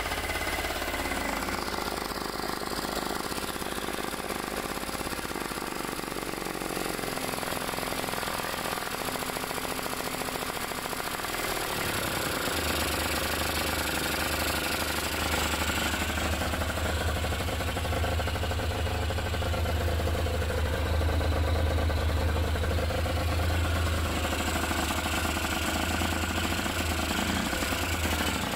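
Honda NS250F's two-stroke V-twin engine running at a steady, rattly idle, started for the first time in a long while after work on its overflowing carburetors. About twelve seconds in, its low beat grows stronger.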